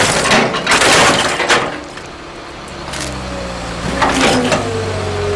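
Excavator bucket crushing and tearing apart a burned boat hull: loud cracking and splintering for about the first second and a half. After that the excavator's engine runs steadily, with more cracking about four seconds in.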